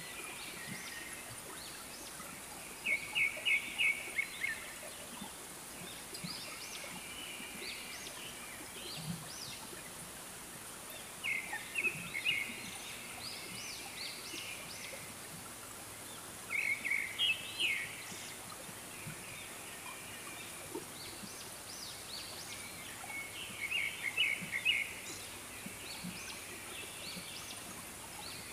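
Wild bird calls: short bursts of rapid, trilled notes, repeating every few seconds, over a steady high hiss.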